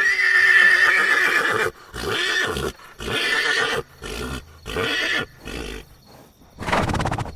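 Horse neighing: one long whinny, then several shorter calls that fade, and a breathy noisy blast near the end.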